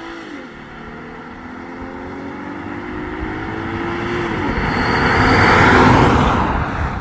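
Car engine accelerating at full throttle, its pitch climbing through the gears with two shifts, about a fifth of a second in and about four and a half seconds in. The sound grows steadily louder, with a rushing noise peaking near the end of the run.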